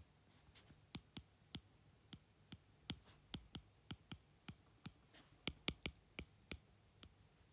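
Stylus tip tapping and clicking on a tablet's glass screen while handwriting numbers and words: faint, short, irregular clicks, about two or three a second, a few louder ones past the middle.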